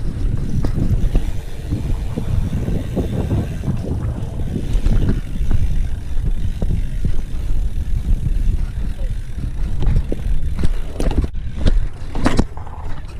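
Wind buffeting the microphone over the low rumble of a BMX bike being ridden, with many small knocks and rattles from the bike throughout.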